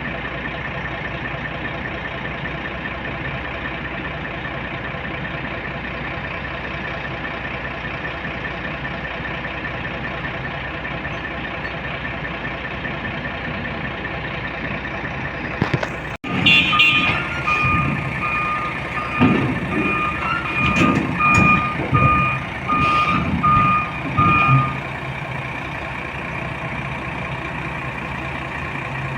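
Heavy diesel engine running steadily. After a sudden break about halfway through, a warning alarm beeps repeatedly over the engine, which surges unevenly.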